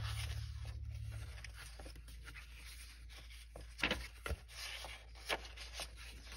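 Pages of a book of scrapbook paper being turned by hand: soft paper slides and rustles, with a few sharper page flicks in the second half, over a low steady hum.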